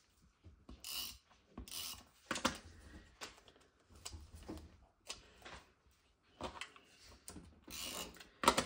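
Quiet, irregular scrapes, rustles and clicks of paper scraps being handled and pressed onto a small collage card, with the ratchety clicking of a plastic tape glue runner.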